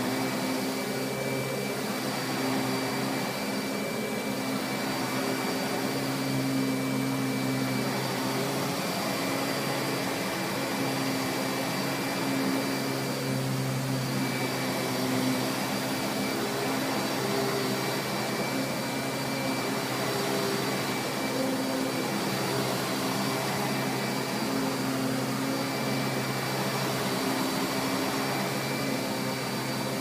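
Tacony-built Simplicity 7850 upright vacuum running on carpet as it is pushed, a steady motor hum with a thin, constant high whine.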